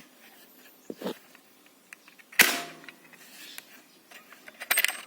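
A homemade 8 mm PCP air gun fires once about two and a half seconds in: a sharp crack with a brief tail of escaping air. A light click comes about a second in, and a few mechanical clicks come near the end. Its hammer spring is thought by the owner to be too weak, giving a soft hammer strike.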